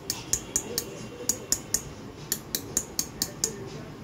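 Wire whisk beating thick chocolate cake batter in a stainless steel bowl, its wires clicking against the bowl about four to five times a second. The clicks come in short runs with brief pauses and stop shortly before the end.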